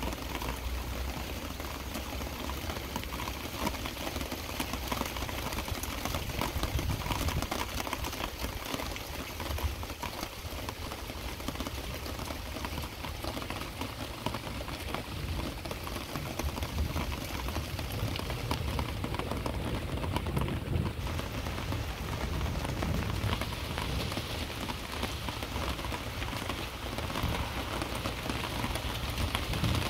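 Heavy rain falling steadily, a dense patter of drops on the ground and surfaces.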